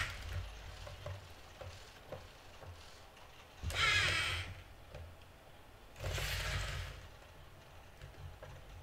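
NAO humanoid robot's joint motors whirring in two short bursts of about a second each as it moves its arms, near four and six seconds in, with faint clicks in between.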